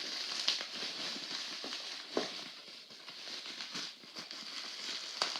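Packaging being handled and opened: light crackling and rustling with scattered small taps and clicks.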